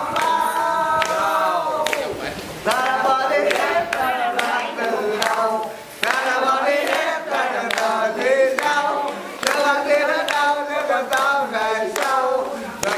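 People singing together without instruments, with hands clapping along.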